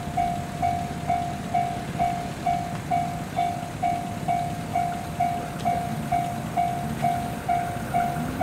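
Railway level-crossing warning bell ringing steadily, about two strikes a second. Underneath, the low rumble of an approaching electric train grows near the end.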